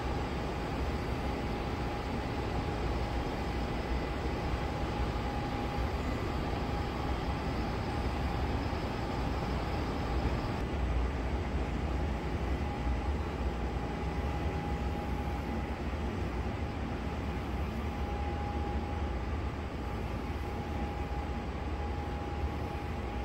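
Steady cabin noise inside a Boeing 787-9 airliner: a constant low rumble and airy rush with a steady whine. A faint high hiss drops out about ten seconds in.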